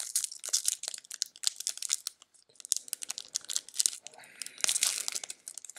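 Football trading cards being handled close to the microphone: a rapid run of crisp scratching, sliding and clicking as the card stock rubs and flicks against other cards, with a brief pause a little past two seconds in.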